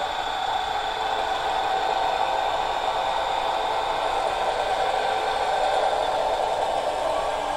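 ESU sound decoder in a Liliput H0 model of the DB class 704 railcar playing a steady engine running sound through its small loudspeaker as the model rolls slowly along the track.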